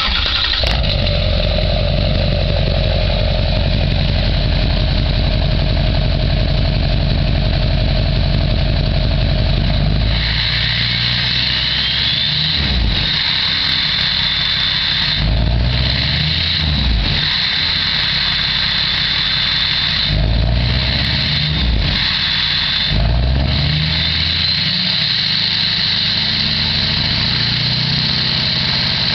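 Duramax LLY 6.6-litre V8 turbodiesel of a 2005 2500HD pickup, breathing through a straight-piped MBRP exhaust, starting up and idling, then revved in about six short blips that rise and fall back. A high whine joins the exhaust note about ten seconds in.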